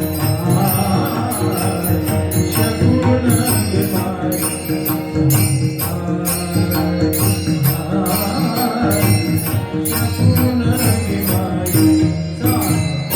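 Marathi devotional kirtan singing with instrumental accompaniment, over a steady beat of metallic hand percussion.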